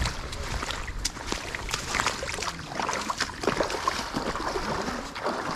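River water splashing and trickling, with many irregular sharp splashes and a low rumble of wind on the microphone.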